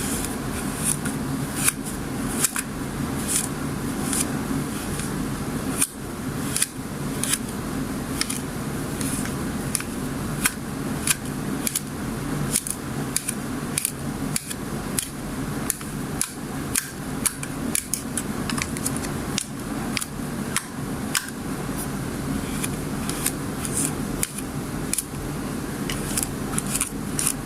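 Slime mixed with kinetic sand being pressed and worked by hand, giving irregular sharp crackles and pops about once or twice a second, over a steady low hum.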